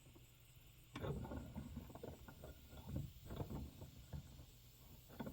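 Faint, irregular handling sounds of small stove parts being worked by hand at a bench: soft knocks, rustles and a few light clicks starting about a second in.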